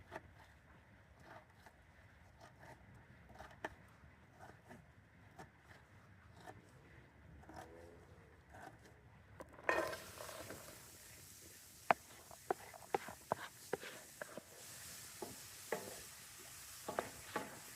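Faint scattered taps, then about ten seconds in food starts sizzling in a hot pan. A utensil clicks and scrapes against the pan several times over the steady sizzle.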